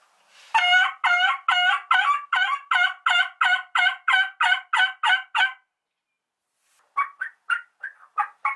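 Turkey mouth (diaphragm) call blown in a hen yelp sequence: about fourteen evenly spaced yelps, roughly three a second. After a short pause comes a quicker run of shorter, choppier notes near the end.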